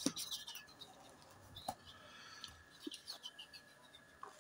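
Faint handling noise from a hand ball pump and its inflation needle being fitted to a basketball: a few light clicks and short faint squeaks of plastic and rubber parts.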